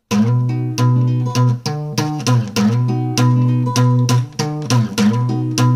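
Blues guitar playing an instrumental intro with no vocals. It starts abruptly and picks a repeating riff, a few notes a second, over a low bass note that rings underneath.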